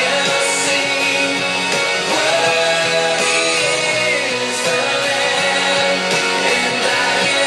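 Band music led by guitar in a worship-rock song: an instrumental passage with no clear singing.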